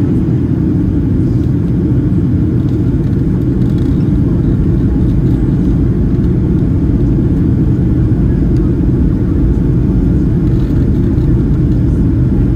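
Boeing 737-800 jet engines and rushing air heard from inside the passenger cabin: a loud, steady, low rumble that holds even throughout.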